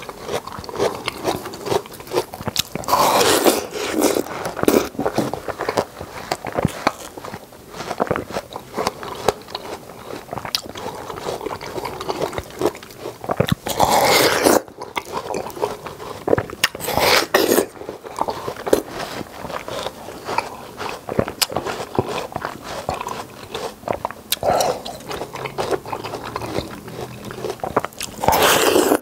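Close-miked eating of a yellow-rinded half-moon watermelon: wet biting, crunching and chewing of the juicy red flesh, a steady run of small wet crackles with several louder bites now and then.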